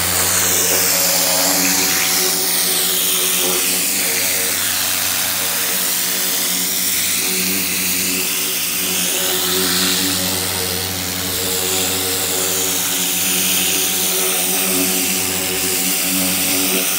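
Hart 2000 PSI pressure washer running steadily, its pump motor humming under the loud hiss of the high-pressure water jet on carpet. The hiss swells and fades as the nozzle sweeps back and forth.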